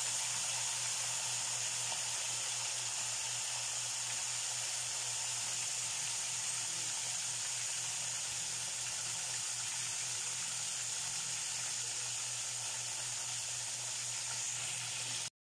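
Tilapia frying in hot oil in a pan: a steady sizzling hiss over a low steady hum, cutting off suddenly near the end.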